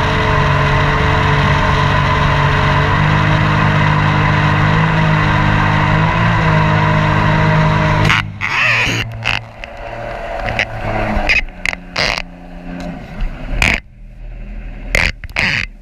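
Mini jet boat's engine running steadily at speed. About eight seconds in the note drops away suddenly to a lower, weaker run, broken by short, loud bursts of noise.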